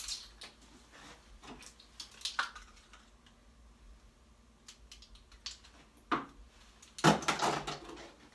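A utensil clinking and scraping in a mixing bowl as slime is stirred with borax activator: scattered short clicks, a quiet spell, then a louder run of scraping about seven seconds in.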